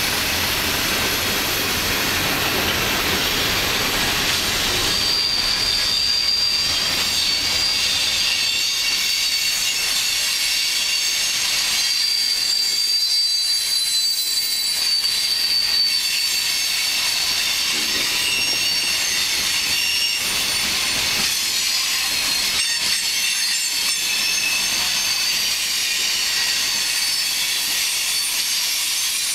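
Freight train of open-top and tank cars rolling past, steel wheels running on the rails. A low rumble is strongest for the first few seconds and then eases. A high, thin wheel squeal comes in about five seconds in, holds for roughly ten seconds, and returns fainter later.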